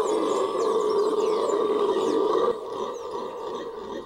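Venezuelan red howler monkey howling: a loud, raspy, droning roar that breaks off about two and a half seconds in, leaving fainter sound.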